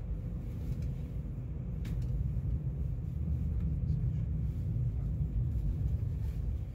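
Steady low rumble of an Avanti West Coast electric train running along the track, heard from inside the passenger cabin, with a faint steady hum and a few light clicks.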